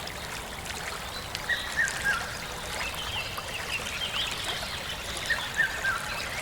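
Bird chorus: many birds chirping and calling in short, repeated whistled notes over a steady background hiss.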